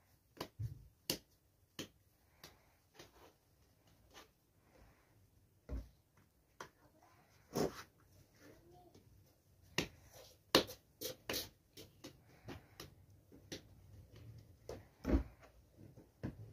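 Hands working bread dough: irregular sharp taps, pats and soft knocks as dough is pulled from a plastic bowl, shaped, and dough balls are set down on a wooden board.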